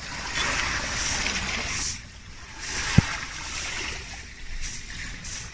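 Surf washing on a sandy, rocky beach, swelling and easing back, with one sharp click about three seconds in as a seashell is set down among the stones.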